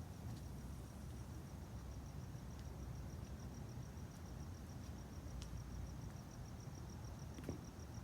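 Cricket chirping in a steady, evenly spaced high pulse, several chirps a second, over a low background rumble.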